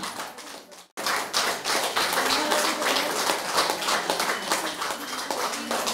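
Audience clapping in quick, dense claps, with voices talking underneath. The sound drops out for a moment just before a second in, then the clapping resumes.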